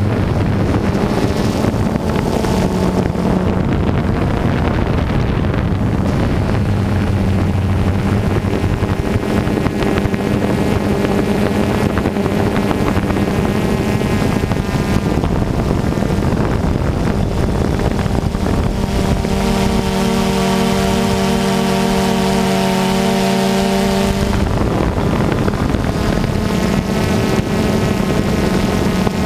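Multirotor drone's motors and propellers humming steadily, with wind over the microphone. The pitch shifts as it flies, and a stronger, higher whine stands out for a few seconds about two-thirds of the way through.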